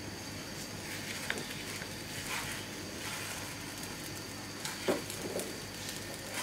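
Faint steady sizzle and hiss from a nonstick frying pan on a gas stove, with a few soft knocks of a silicone spatula against the pan as a rice-flour crepe is rolled up, the loudest just before five seconds in.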